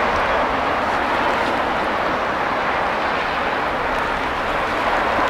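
Peppercorn A1 Pacific steam locomotive 60163 Tornado, a three-cylinder engine, working hard up a steep gradient. Its exhaust comes through as a steady, even sound with no separate beats.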